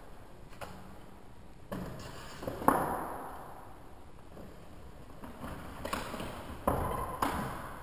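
Cardboard box and packaging being handled as a small RC helicopter is taken out, with a handful of separate knocks and thuds against a table. The sharpest comes a little under three seconds in.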